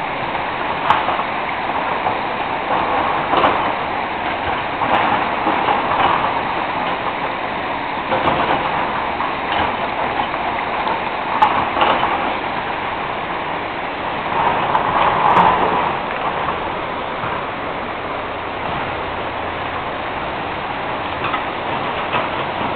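Flowing river water rushing steadily, swelling and easing now and then.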